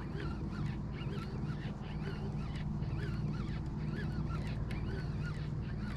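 Many birds calling over and over, short rising-and-falling honks several a second, over a steady low hum.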